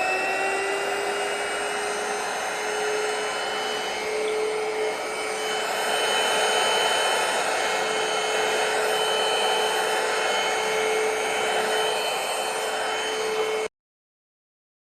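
Airbot Supersonics Aura cordless stick vacuum cleaner running: a steady motor whine over airflow hiss, its pitch rising slightly in the first couple of seconds as it comes up to speed, then cutting off suddenly near the end.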